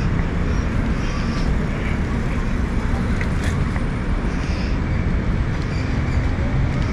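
Steady street traffic noise: a continuous, even rumble.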